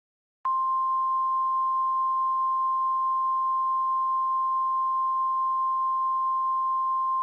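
Emergency alert attention tone: one steady pure tone at about 1050 Hz, the NWS weather-radio warning alarm tone, starting about half a second in after a brief silence.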